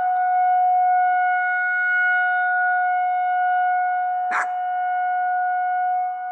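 Outdoor tornado warning siren sounding a steady, held tone, heard from inside the bus; it is the monthly test of the outdoor warning sirens. A single sharp click about four and a half seconds in.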